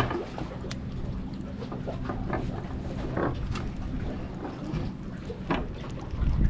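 Wind rumbling on the microphone over a low steady hum that fades about halfway through, with scattered small clicks and rustles as a crab is picked out of a wire ring crab trap.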